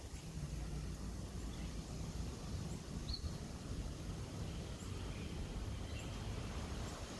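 Outdoor ambience: a steady low rumble with a few short, faint bird chirps, the clearest about three seconds in.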